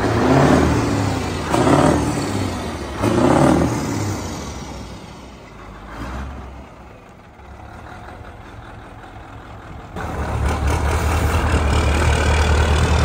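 Scania truck's diesel engine revved hard three times in quick succession, then dropping back to a low run. About ten seconds in, a steady loud low engine rumble starts suddenly as the truck drives.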